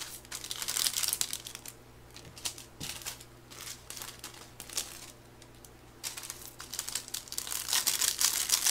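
Small plastic sachet of dried vegetable garnish (야채 고명) crinkling as it is handled and torn open, then emptied into a pot. The crackling comes in short bursts, busiest over the last few seconds.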